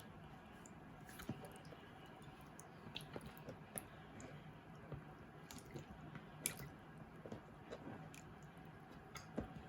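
Faint kitchen handling sounds: scattered small clicks, taps and soft squishes, a few a second, as the agar jelly and utensils are handled, over a low steady hum.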